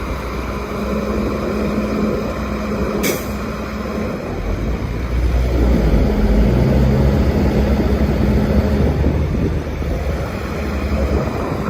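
Heavy diesel construction machinery running steadily, with a short sharp hiss about three seconds in; the engine gets slightly louder about halfway through.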